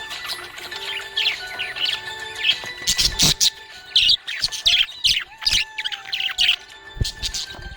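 Budgerigars chirping rapidly in quick, high chirps, with a few sharp clicks among the calls.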